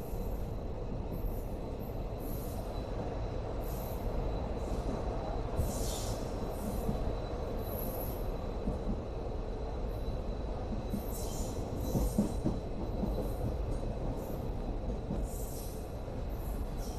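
Passenger train coach rolling slowly along a station platform: a steady rumble of wheels on the rails with short high-pitched squeals every few seconds as the train comes in to stop.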